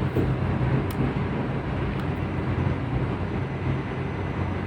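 Steady low electrical mains hum from the energised, freshly cleaned contactor and the equipment it now switches on, its contacts once more passing current. Two faint clicks stand out, one about a second in.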